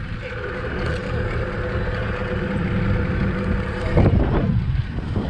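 Outboard motor of a Progress aluminium motorboat running steadily under way, with wind buffeting the microphone. A louder burst of noise about four seconds in.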